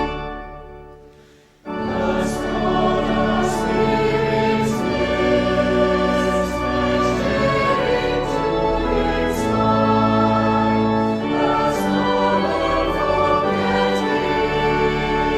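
A choir singing with sustained accompaniment. The first piece fades out over about a second and a half, then a new sung passage starts abruptly and carries on.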